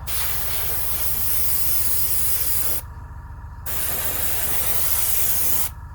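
Airbrush spraying a weathering wash, a steady hiss of air in two bursts: one of almost three seconds, a short pause, then another of about two seconds. A steady low hum runs underneath.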